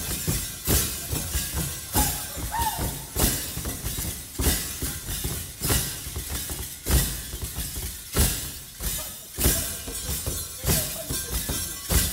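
Dancers' metal ankle rattles jingling and crashing with their stamping feet in the geerewol dance step: a strong stamp with a bright metallic crash about every second and a quarter, with lighter jingles between.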